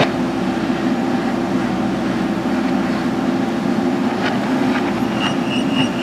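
JCB 3DX backhoe loader's diesel engine running steadily while the front loader bucket pushes soil. A few light knocks come in the second half.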